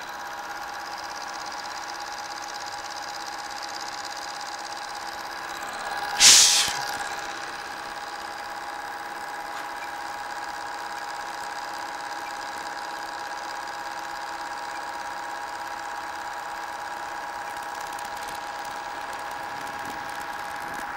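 Southwestern Industries TRAK K3 CNC knee mill running a circle-pocket program, its spindle turning an end mill that cuts a round pocket in a metal block, with a steady whine of several tones. About six seconds in, a brief loud burst of noise rises above it.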